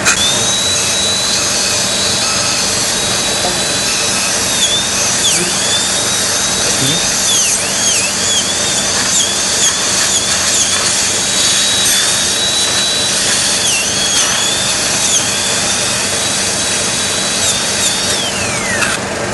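Dental surgical handpiece spinning a disc cutter through jaw bone for a basal implant osteotomy: a steady high whine that dips in pitch again and again as the cutter bites into the bone, then winds down with a falling pitch near the end.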